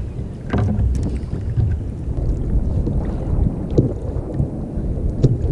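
Wind rumbling on the microphone, with a few light knocks.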